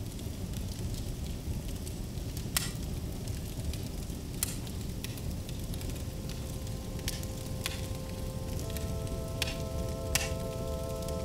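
Fire crackling with a steady low rumble and sharp pops every second or two. Held music notes come in about halfway and build toward the end.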